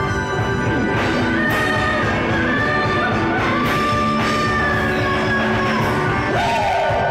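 A live rock band playing loud amplified music with drums and electric guitar, and a woman singing into a microphone.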